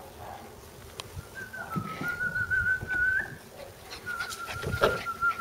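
A person whistling two long, steady high notes, each ending with a short upward flick, the usual call to bring puppies over. There is a sharp thump just before the second note ends.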